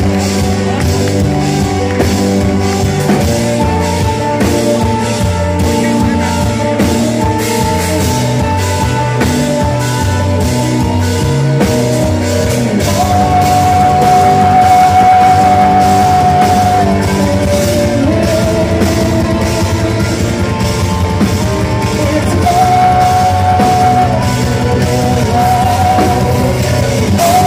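Live progressive metal band playing, with guitars, bass, drums and singing, recorded from within the audience. A high held melody line with a slight waver comes in about halfway.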